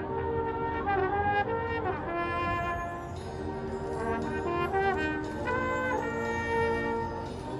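Marching band playing, its brass holding full chords that change about every second, with short slides between some notes.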